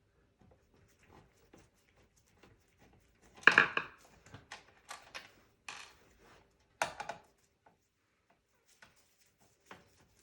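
A screwdriver backing a screw out of the sheet-metal computer case at the power supply, with small scattered clicks and ticks. A louder knock comes about three and a half seconds in, and another about seven seconds in.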